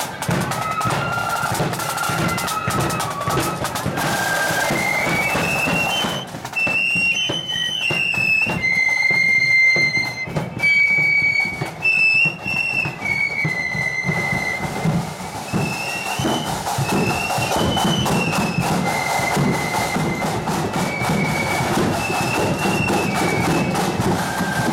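Marching flute band playing a tune: the flutes carry a high melody over side drums and bass drum. The drumming thins out for several seconds midway while the flutes play on.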